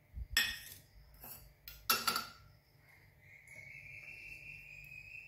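Kitchen dishes and utensils clinking and knocking as they are set down and picked up, several knocks in the first two seconds, the loudest about two seconds in. A faint steady high whine follows from about three seconds in.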